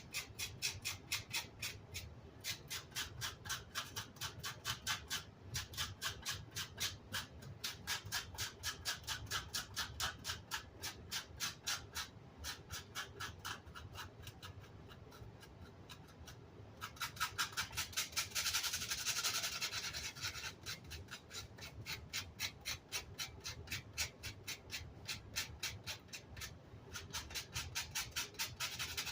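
Rapid back-and-forth scrubbing of an amplifier's grill cloth mesh, several strokes a second. The strokes ease off for a few seconds past the middle, then come harder and denser for a few seconds.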